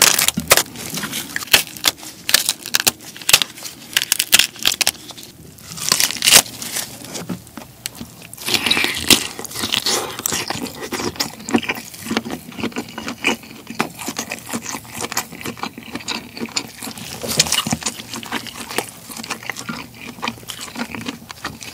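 Large cooked black tiger shrimp being peeled by gloved hands: the shell cracking and crackling in many quick sharp snaps, with short tearing scrapes as shell pulls away from the meat.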